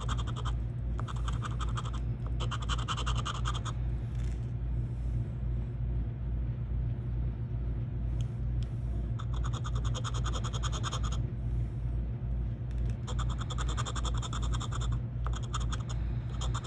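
Scratch-off lottery ticket being scraped with a small round scratcher: quick back-and-forth scratching strokes in several bursts, stopping for a few seconds in the middle. A steady low hum runs underneath.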